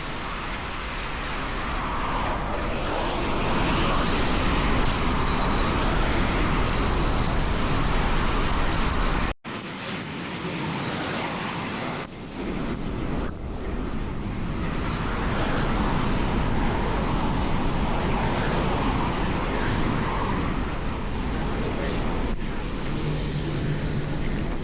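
Wind rumbling on the microphone while cycling, with road traffic passing in long swells that rise and fade. The sound cuts out for an instant about nine seconds in.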